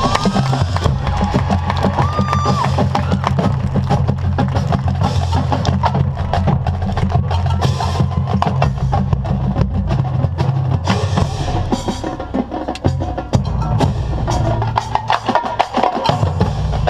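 Marching band playing its field show: fast, dense percussion strokes over sustained low brass tones, with a few higher held notes.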